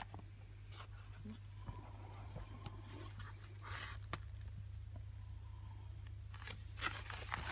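Brief rustles and scrapes of a fabric carrying bag being handled: one short rustle a little before halfway, then a cluster of rustles near the end, over a steady low hum.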